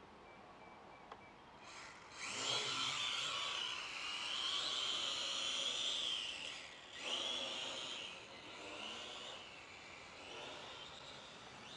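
K70C Sky Warrior quadcopter's motors and propellers whining in flight, the pitch wavering with the throttle. It comes in loud about two seconds in, dips briefly around seven seconds, then fades as the quadcopter flies off.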